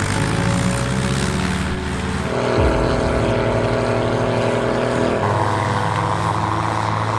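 Diesel tractor engines running under load, with the engine note changing every few seconds as one tractor gives way to another, over background music.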